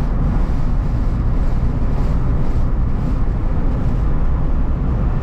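Steady road and engine noise inside a moving car's cabin: a low, even rumble of tyres and engine while driving along a highway.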